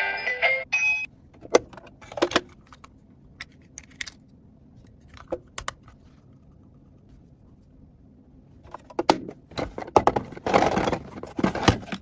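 Small hard plastic toy pieces clicking and clattering as they are handled: a few scattered clicks, then a busier stretch of clattering over the last three seconds. A music track ends about a second in.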